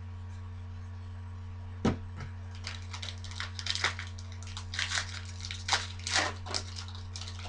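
A foil trading-card pack wrapper being torn open and crinkled: one sharp click about two seconds in, then a run of irregular crackling rustles, over a steady low electrical hum.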